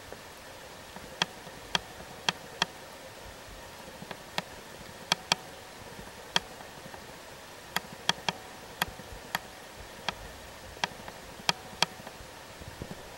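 Underwater sound of a flowing river over a gravel bed: a steady hiss with sharp clicks at irregular intervals, some in quick pairs.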